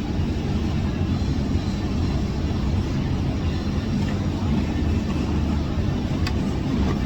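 Steady low rumble with a single short click about six seconds in.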